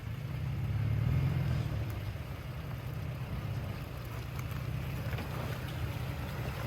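Off-road vehicle's engine running as it drives along, a steady low rumble that swells about a second in.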